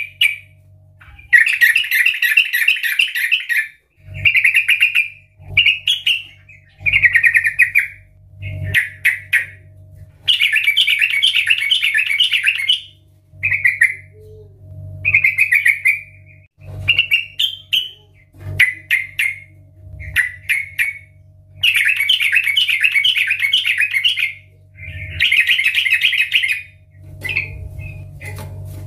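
Yellow-vented bulbul singing loudly and continuously: long, rapid bubbling warbles of two to three seconds alternate with short clipped phrases, over and over.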